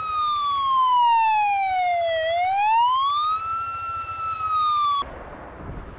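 Fire-truck siren wailing: one long slow fall in pitch over about two seconds, a quicker rise back up, then a held high tone that cuts off suddenly about five seconds in.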